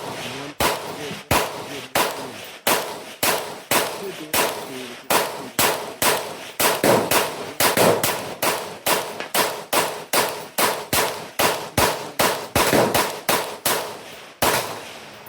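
Rifle shots in quick, uneven succession, about two to three a second, each sharp crack trailing a short echo, with a brief pause near the end.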